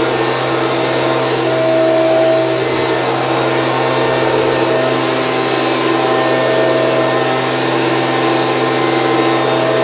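Stihl BG 86 C handheld leaf blower running steadily, its small two-stroke engine holding one even speed under the rush of its fan.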